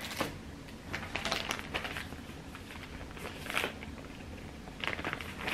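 Packaging crinkling and rustling in several short bursts as small purchased items are handled and unwrapped.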